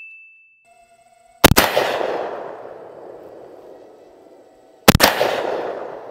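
Benelli semi-automatic shotgun fired twice, about three and a half seconds apart, each shot echoing and fading away over a couple of seconds.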